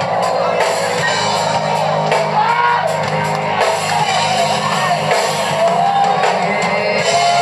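Live band playing a reggae arrangement, with a woman singing over it.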